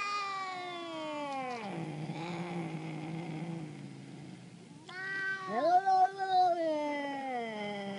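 A domestic cat's long, drawn-out threat yowls. The first yowl slides down into a low growl, then a louder yowl rises about five seconds in and sinks back into a growl. This is caterwauling in a territorial standoff with an intruding cat.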